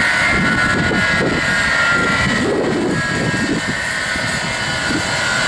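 The four jet engines of a Boeing 747-200F running loudly: a steady high whine over a rough, fluttering rumble.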